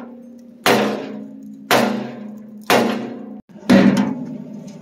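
Hammer striking the steel of a tractor loader bucket: four heavy blows about a second apart, each leaving a low metallic ring that fades before the next.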